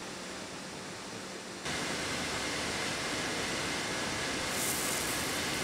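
Steady rushing noise, with no clicks or strikes, that steps up suddenly in level about a second and a half in, when a faint high steady tone joins it. A brighter hiss comes in near the end.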